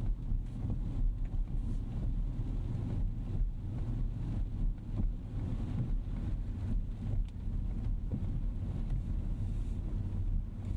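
2025 Rolls-Royce Ghost Series II's 6.75-litre twin-turbo V-12 and tyres on the move: a steady low rumble with a few faint ticks.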